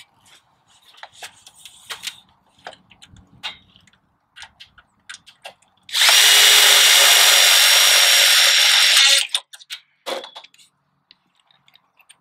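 Cordless drill driving a self-drilling tek screw through aluminum wire channel. It runs steadily with a high whine for about three seconds, starting about six seconds in. Light clicks and handling knocks come before and after.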